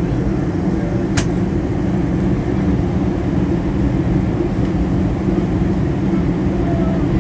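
Steady cabin noise of a Boeing 737-800 in flight, heard from inside the cabin: a low, even rush of airflow and engine hum. One brief click comes about a second in.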